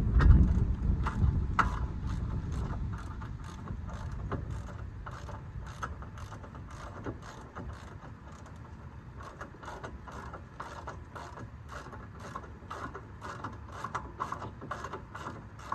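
Hand ratchet clicking as it runs in the mounting bolts of a big brake kit's four-piston caliper, a long run of short, evenly spaced clicks. A low rumble at the start fades away over the first few seconds.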